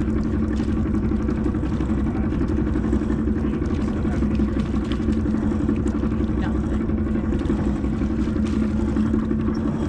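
A sailboat's inboard engine running steadily under way, a constant low drone with a hum just above 200 Hz.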